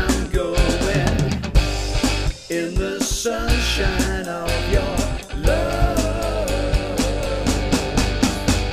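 Rock music: a song with guitar and drums playing, with a melodic instrumental line between sung verses.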